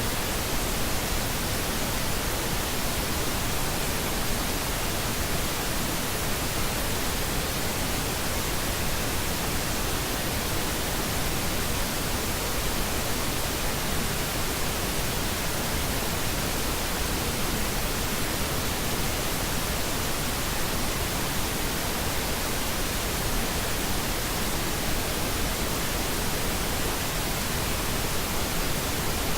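Steady pink noise: an even, unchanging hiss with no other sound.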